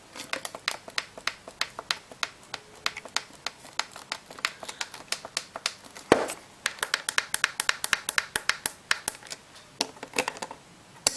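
Rapid small plastic clicks, about five or six a second, from the buttons of a blue Lego alarm clock pressed over and over to step the alarm time forward, with one louder knock about six seconds in.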